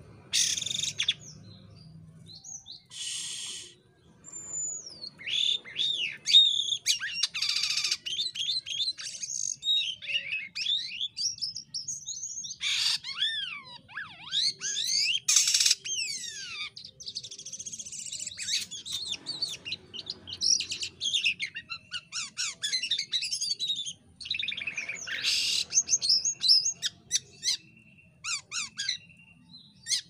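Jalak kapas starling singing a long, varied song: whistled notes that rise and fall, quick chattering runs and harsh rasping notes, in bursts with short pauses between them.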